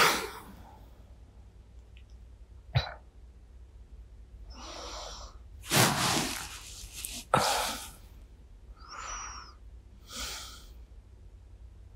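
A woman's drowsy breathing up close on a binaural microphone: a series of slow breaths and sighs, the loudest about six seconds in.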